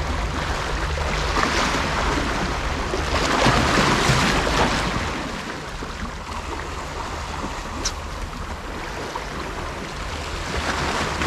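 Small sea waves washing and breaking against a rocky shore, with wind buffeting the microphone; louder for the first five seconds, then easing off.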